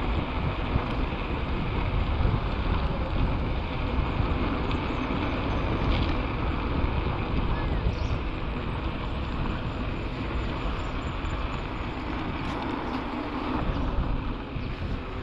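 Steady wind rush buffeting the microphone, with a low rolling rumble, as a mountain bike moves at speed along a trail.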